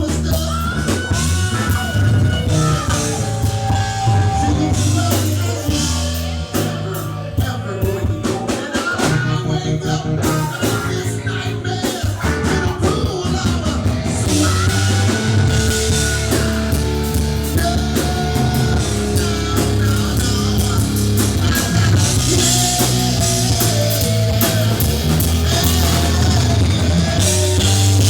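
Rock band playing live: electric guitar, bass and a drum kit with cymbals, with a voice singing at times.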